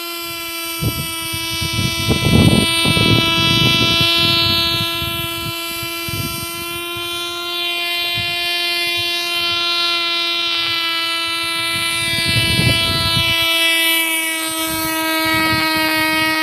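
Cox .020 glow-fuel two-stroke model engine in a tiny nitro RC car running flat out: a loud, steady, high-pitched buzz that holds its pitch, dipping slightly near the end. Low rumbling swells rise under it twice, about two seconds in and again past the twelve-second mark.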